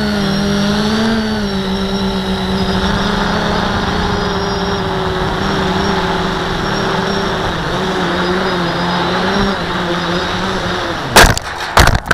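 Q450 quadcopter's motors and propellers humming steadily in flight, the pitch wavering a little. Near the end the hum stops and two loud impacts follow as the quadcopter comes down on gravel and flips over.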